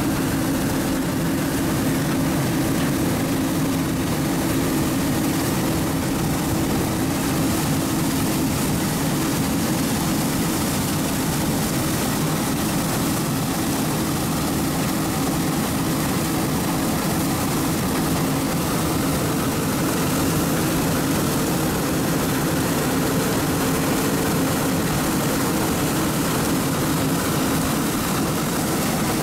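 Claas Lexion 460 combine harvester running steadily under load while cutting oilseed rape: a constant drone of engine and threshing machinery with a steady low hum, unchanging throughout.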